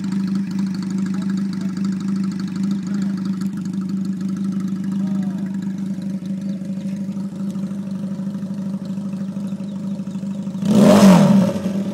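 Motorcycle engine idling steadily, then revved once, loud and brief, for about a second near the end.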